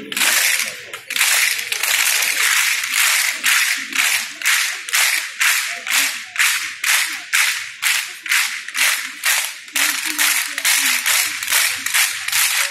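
A large group clapping in unison in a steady drill rhythm, about two to three sharp claps a second.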